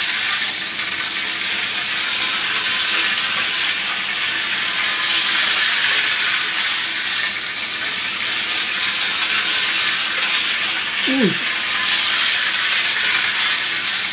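Vintage Hornby Dublo three-rail locomotive running around a track oval: a steady hiss and whirr from its motor and wheels on the rails. A short cry falls in pitch about eleven seconds in.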